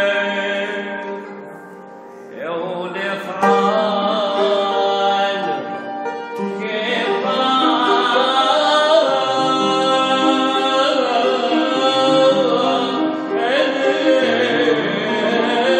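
A man sings a church hymn in long, ornamented notes that waver in pitch, with piano accompaniment. The singing drops away briefly about two seconds in, then resumes.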